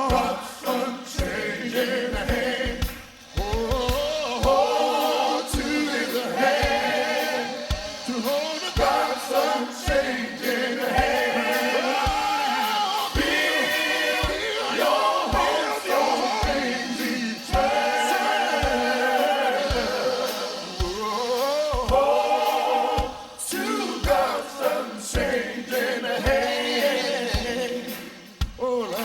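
Gospel choir and congregation singing without instruments, with low thumps keeping a steady beat under the voices.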